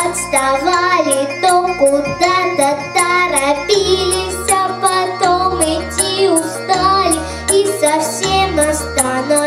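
Children singing a pop song over a backing track with a steady beat and a stepping bass line.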